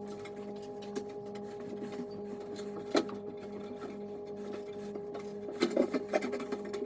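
Pry bar working a sheet-metal bathroom exhaust fan housing loose from the wooden ceiling framing: one sharp knock about three seconds in, then a run of scraping and clattering metal hits near the end. A steady hum of several tones sounds underneath.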